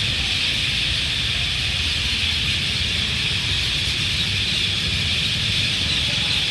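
Massed chorus of a huge flock of parrots gathering to roost, thousands of calls blending into one steady high-pitched din. A steady low rumble runs underneath.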